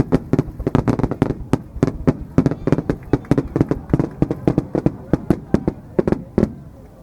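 Starmine fireworks barrage: aerial shells bursting in rapid succession, several loud bangs a second, that stops about six and a half seconds in.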